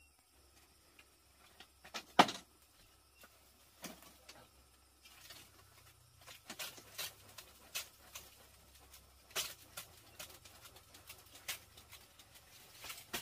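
Knocks and rustles of someone settling on a slatted bamboo bed and handling a stiff dry leaf: one sharp knock about two seconds in, then a run of light, rustling strokes a few a second.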